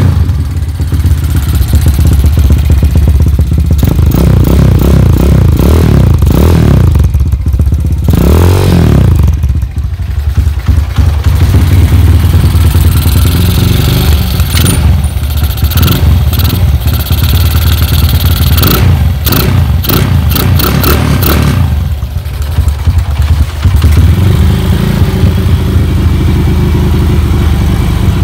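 Honda GL100's single-cylinder four-stroke engine revved repeatedly through an aftermarket exhaust, the throttle opened and let drop back several times.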